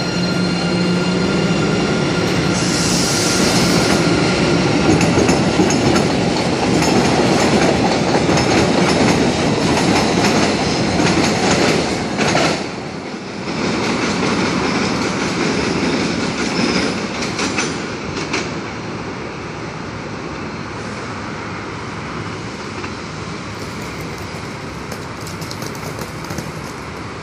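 MBTA Blue Line 700 Series subway train pulling away. A steady electric whine from its drive runs for the first couple of seconds, a brief high wheel squeal comes about three seconds in, and then the wheels clack over rail joints as the train runs off and the sound drops to a quieter rumble.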